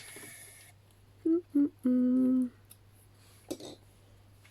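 A woman humming a few notes to herself: two short notes, then a longer held lower note.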